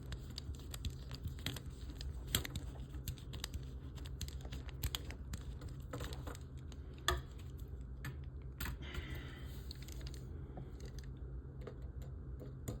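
Small screw and screwdriver clicking and scraping against the plastic parts of a model kit in irregular light taps, with a short scrape about nine seconds in; the screw is failing to catch in its hole. A steady low hum runs underneath.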